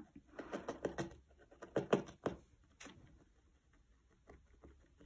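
Felting needle stabbing again and again through wool and felt into a foam felting pad: a quick run of soft pokes that thins out after about three seconds.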